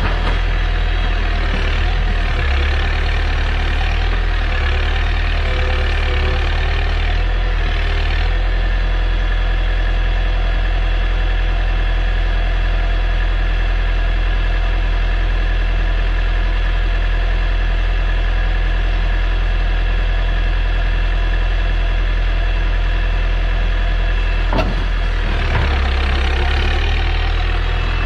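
Caterpillar 205LC excavator's diesel engine running steadily as the machine swings its upper body round. The engine note thickens under hydraulic load in the first few seconds and again near the end, just after a single sharp clank.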